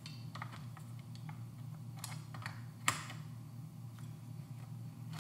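Scattered small metallic clicks and taps of a Holosun HS510C reflex sight's quick-release mount being unlatched, slid along the rifle's top rail and clamped again, with one sharper click about three seconds in.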